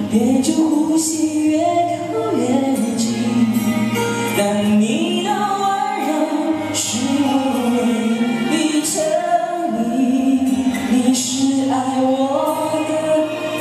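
A singer's voice amplified through a handheld microphone and PA speakers, singing a pop ballad in long held phrases over a backing track.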